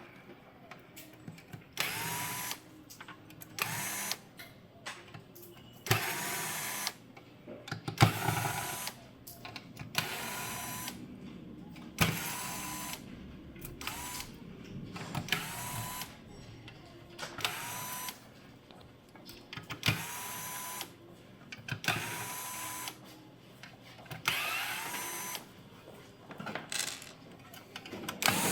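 Short runs of a small power screwdriver motor, about one every two seconds, each whirring up to a steady pitch and then stopping.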